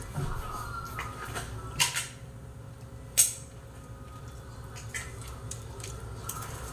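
Kitchen handling noise of a can, utensils and a cooking pot on a counter and stove: a few sharp clicks and knocks, two close together near two seconds in and the loudest about three seconds in, over a low steady hum.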